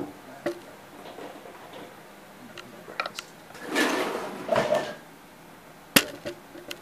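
Handling noise as a camera is moved around: a few sharp clicks and knocks, two close together about three seconds in and the sharpest near the end, with a soft rustle in the middle.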